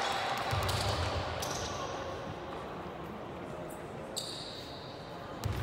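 Basketball bouncing on a gym court during a game, with a few faint high-pitched squeaks.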